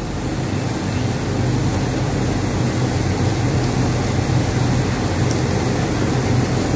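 A steady mechanical hum with a hiss, like a fan running, growing a little louder about half a second in.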